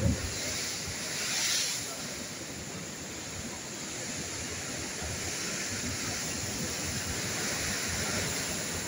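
Rough sea: waves surging and breaking against a shore of concrete breakwater blocks, with wind buffeting the microphone. A brief low thump right at the start, and a louder rushing surge about a second and a half in.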